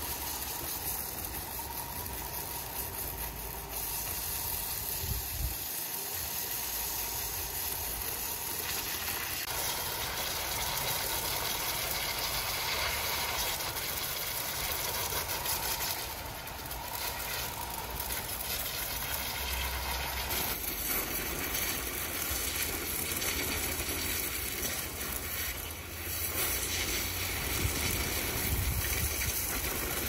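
Sawmill machinery running steadily: a low engine-like drone with a strong high hiss over it, dipping briefly about sixteen and twenty-six seconds in.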